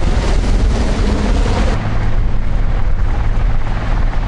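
Helicopter flying low overhead: a loud, heavy rumble of rotor noise. A little under halfway in, the upper hiss drops away, leaving a lower rumble with a steady hum.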